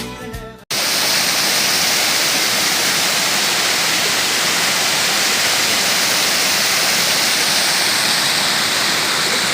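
Waterfall pouring, a steady dense rush of falling water that cuts in abruptly under a second in, as background music ends.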